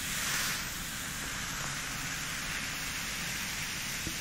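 Coca-Cola fizzing in a glass mason jar: a steady hiss of bursting bubbles.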